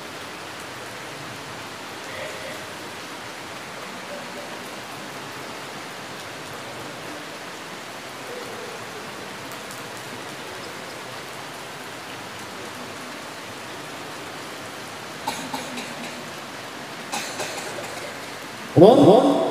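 Steady background hiss with no voice for most of the stretch, broken by a few faint knocks about three-quarters of the way through. Near the end a man's voice comes in loud through a microphone, starting a melodic Qur'an recitation (tilawah).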